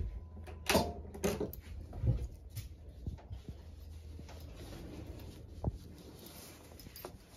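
Scattered light knocks and bumps in a small wooden boat cabin, several in the first three seconds and a sharper one about halfway, over a low steady hum.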